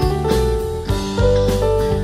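Live band playing an instrumental passage: keyboard and electric guitar notes over bass guitar and a drum kit keeping a steady beat.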